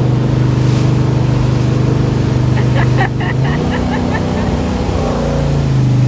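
Jet boat engine running steadily, its note shifting about halfway through as the throttle changes and settling back to its earlier pitch near the end.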